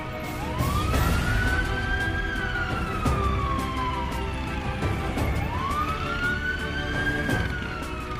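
A wailing siren sweeping up quickly and falling slowly, twice, over the low rumble of dirt-bike engines and wind.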